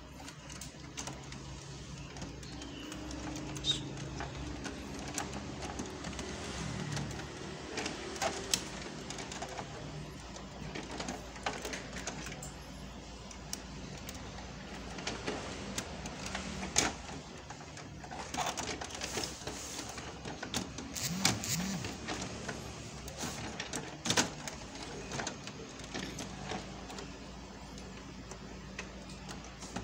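Scattered plastic clicks and knocks as drum units and parts are handled and seated back into a Kyocera ECOSYS M6630 colour laser printer, over a faint steady low hum.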